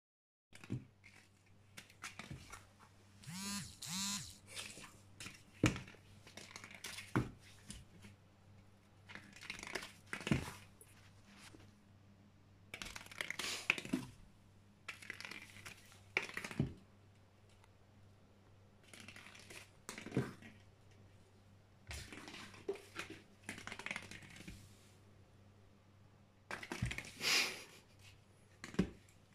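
Crumpled aluminium-foil ball crinkling in repeated short bursts as a kitten bats it about, with sharp taps and clicks as the ball and paws strike the wooden parquet floor.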